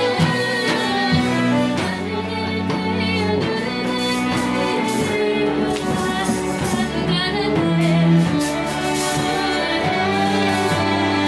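Live acoustic folk ensemble of several fiddles and a flute playing a Bulgarian tune together, the fiddles bowing under the flute's melody line.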